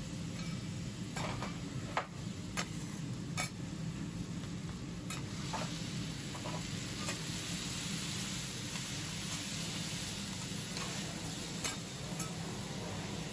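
Hiroshima-style okonomiyaki and noodles frying on a steel teppan griddle with a steady sizzle. Two metal spatulas tap and scrape on the griddle, giving sharp clicks, most of them in the first half.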